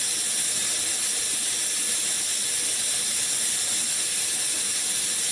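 A steady, even hiss from a DMG DMU 100 monoBLOCK five-axis machining centre, unchanging in level throughout.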